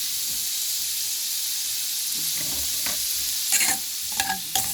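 A steady sizzling hiss from a pot cooking on the stove. From about three and a half seconds in, a utensil clinks against the pot several times with a short metallic ring as the pot is stirred.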